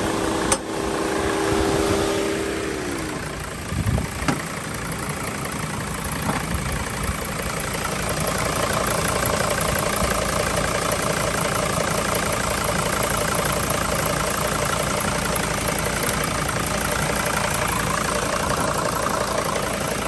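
Mercedes T1N Sprinter diesel engine idling with the air conditioning running. A steady hum slides down in pitch and stops about three seconds in, and a few short knocks come about four seconds in.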